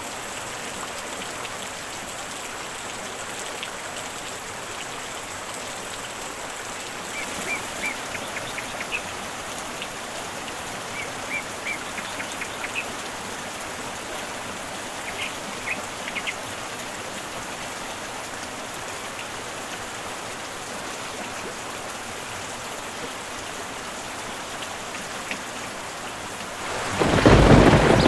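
Steady rain falling on a swimming pool's water surface, with a few short high chirps in the middle. Near the end a loud, deep rumble of thunder breaks in.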